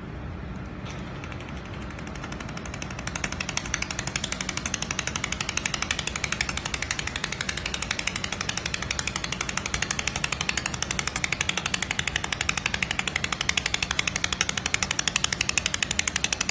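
Fiber laser welding machine welding a seam on a sheet-metal part: a rapid, even train of sharp snapping pulses from the weld starts about three seconds in, over a hiss and the steady low hum of the machine.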